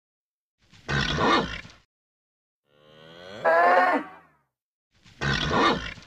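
A bull calling three times: a short, rough call about a second in, a longer pitched moo in the middle, and another short, rough call near the end.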